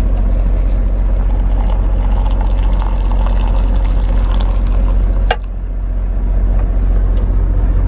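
Hot water pouring from a plug-in travel kettle into a stainless steel tumbler, over the steady low rumble of an idling truck. A sharp click comes a little past five seconds in, and after it the sound drops.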